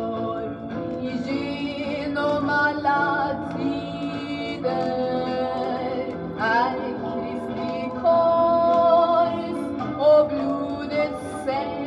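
Music: a woman singing a Swedish Christian song, a 1960s recording, with sustained accompaniment underneath.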